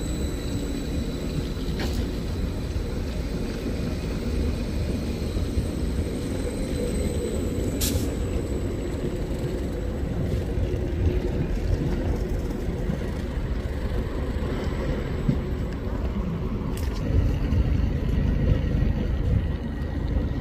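Train at a station giving a steady low rumble, with a few sharp clicks: once about 2 seconds in, once near the middle and once near the end.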